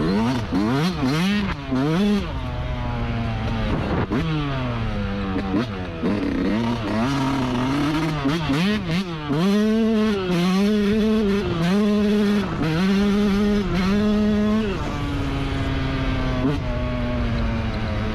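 Yamaha YZ125 two-stroke dirt bike engine revving up and down over and over while being ridden, with short dips between the rises. Near the end it settles to a steadier, slowly falling pitch.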